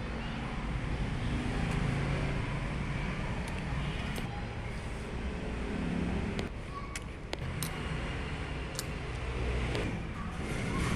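Steady low rumble of motor vehicles in the background, with a few sharp light metallic clicks from small parts being handled in a diesel injection pump housing during reassembly.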